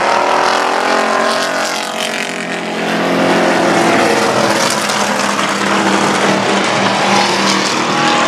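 Race pickup trucks' engines running hard on a dirt track. The engine note falls in pitch over the first couple of seconds, then holds a steadier tone.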